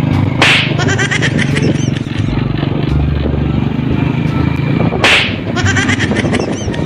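Edited soundtrack: two sharp whip-like swoosh sound effects, about four and a half seconds apart, over a repeating music track, with the low steady hum of a motorcycle engine underneath for most of the stretch.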